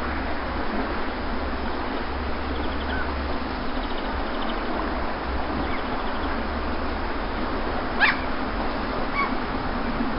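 Steady wash of sea surf on a beach, with a few faint short high chirps and one louder short high call about eight seconds in.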